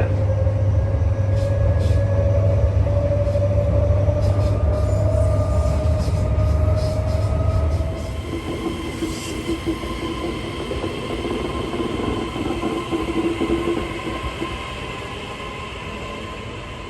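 Brisbane electric suburban train running between stations, heard from inside the carriage. A motor whine rises slowly in pitch over a strong low hum for about eight seconds. Then the hum drops away and steadier higher tones carry on, fading toward the end.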